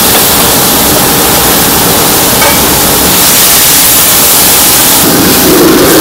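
Diced duck meat sizzling loudly in a hot, oiled wok with shiitake, stirred with a metal ladle over a gas wok burner.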